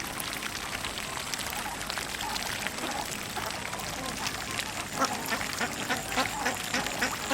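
A group of domestic ducks quacking, many short overlapping calls that come thicker and louder in the second half.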